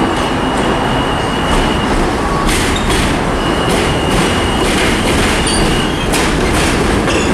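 Subway train running with a steady loud rumble, a thin high wheel squeal that comes and goes twice, and scattered clacks from the wheels over rail joints.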